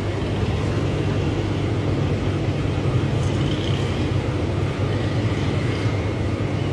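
Aquarium pump running: a steady low hum under a constant hiss.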